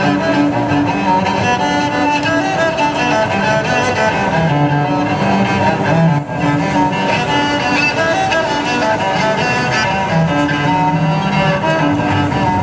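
Cello played with a bow: a melody of long, held notes, with a brief break between phrases about six seconds in.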